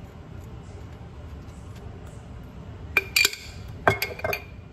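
Metal spoon clinking against a glass jar: five or so sharp, ringing clinks in two quick groups, starting about three seconds in.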